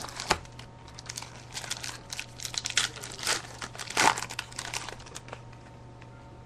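Crinkling and rustling of a foil trading-card pack wrapper and cards being handled, in irregular crackles with a few louder crinkles, over a steady low hum.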